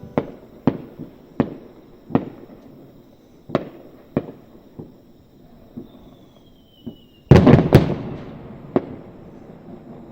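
Fireworks bursting: a string of sharp bangs with echoing tails, then a loud cluster of several bangs close together about seven seconds in.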